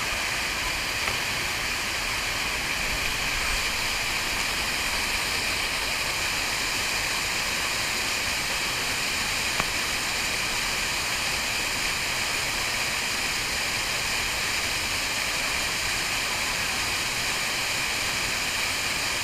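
Waterfall pouring, a steady unbroken rush of falling water.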